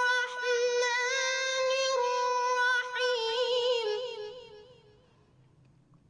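A solo voice chanting Quranic recitation in a slow, ornamented melodic style, holding long high notes with wavering embellishments. The voice fades out about four and a half seconds in.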